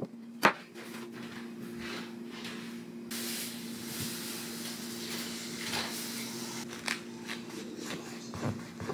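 Kitchen handling sounds: a sharp knock, then a steady hiss from about three seconds in with scattered light knocks and clicks over a low, steady hum.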